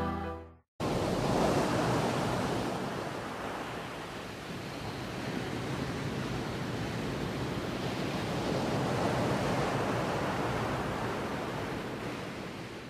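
Ocean surf breaking on rocks and washing up the sand: a steady rushing that starts suddenly about a second in, swells and ebbs slowly, and fades out near the end.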